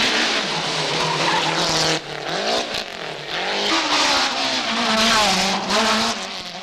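Rally car engines revving hard, the pitch climbing and dropping again and again through gear changes, over tyre squeal on tarmac. The sound drops suddenly about two seconds in, then builds again.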